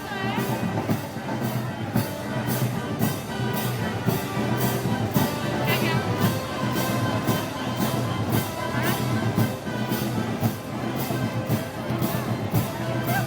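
Brass band playing festival march music, with a steady beat of about two or three strikes a second.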